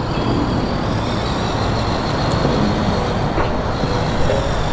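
Simulated truck engine sound played through the small Bluetooth speakers mounted on an RC truck as it drives, a steady rumble.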